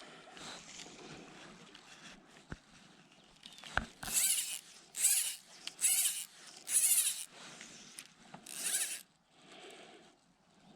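Fly line being pulled off a fly reel in five short pulls, each a brief rasping buzz from the reel, the first four about a second apart and the last a little later.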